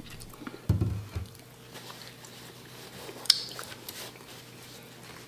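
Quiet handling at a dinner table: a plate set down and a paper napkin handled, with a low knock about a second in and a sharp click a little past three seconds.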